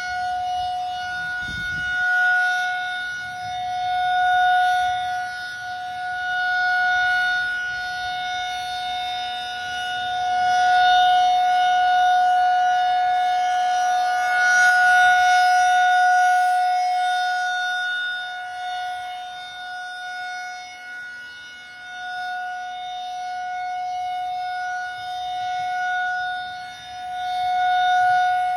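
Federal Signal Thunderbolt outdoor warning siren sounding a steady tone for a tornado warning. Its loudness swells and fades every few seconds as the rotating head sweeps round.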